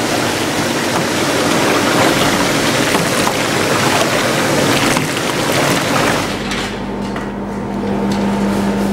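Milk running and splashing into a stainless-steel cheese vat, a continuous rushing of liquid. About six seconds in it gives way to a steady machine hum.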